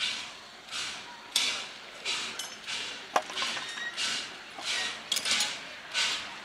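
Oil-fired 4-4-0 steam locomotive chuffing slowly, its exhaust beats coming about three every two seconds, as when working at walking pace. A single sharp metallic clank comes about three seconds in.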